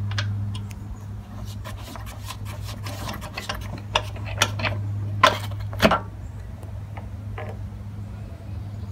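Hands unscrewing and lifting off the plastic air filter cover of a Briggs & Stratton mower engine to bare the carburetor: rubbing and scraping on the housing, then a few sharp plastic clicks and knocks about four to six seconds in, the last two the loudest. A steady low hum runs underneath.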